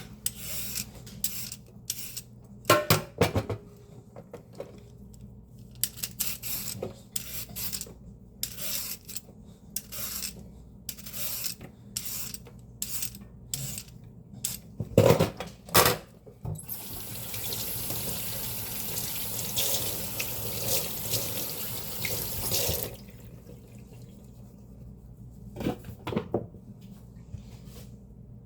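Greens being chopped in a kitchen: irregular knocks and scrapes, then a tap running for about six seconds a little past halfway, then a few more knocks. A fan hums low and steady underneath.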